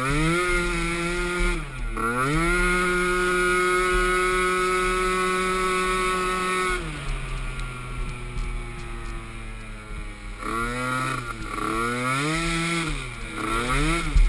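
Small youth racing ATV engine accelerating and holding a steady high pitch, easing off about seven seconds in, then revving up and down in quick, repeated throttle blips near the end.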